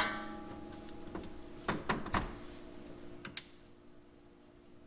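Hand-tool and hose-fitting noises under a truck: one sharp click, then a few soft knocks about two seconds in and another short click a little past three seconds, as the transmission cooler hose is refitted to its metal line and its clamp tightened with a small wrench. A faint steady hum sits underneath.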